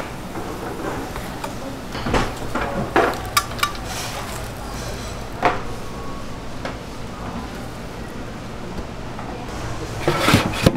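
Kitchen handling clatter: stainless steel food pans knocking and clinking a few times, with a louder scrape and clank about ten seconds in as a pan is gripped and moved, over a steady low hum.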